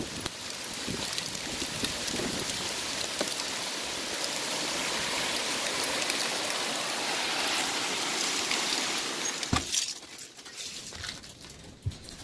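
Hail and heavy rain pelting down in a windy storm: a dense, steady hiss with scattered sharp ticks. After about nine and a half seconds there is a sharp knock, and the storm sound drops to a quieter, duller patter.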